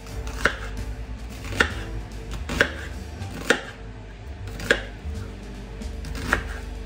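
Kitchen knife slicing a red onion on a wooden chopping board: six sharp knocks of the blade striking the board, roughly one a second.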